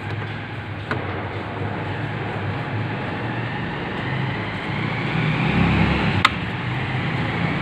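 Steady background vehicle and traffic noise, with a faint rising whine in the middle and a single sharp click about six seconds in.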